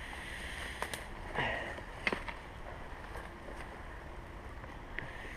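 Quiet outdoor background hiss with a few light clicks and rustles, loudest about a second and two seconds in, from someone moving about on foot on a forest path.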